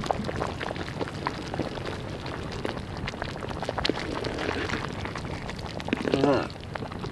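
Large pot of pulao rice boiling hard over a wood fire: steady bubbling with many small pops and crackles.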